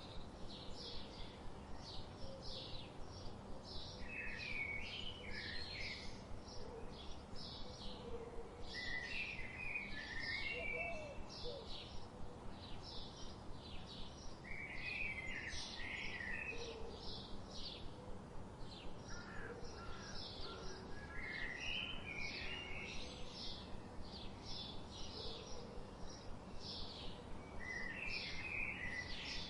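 Several wild birds calling and singing. High, short chirps repeat at about two a second throughout, while a second bird sings short warbled phrases every five or six seconds, over a steady background hiss.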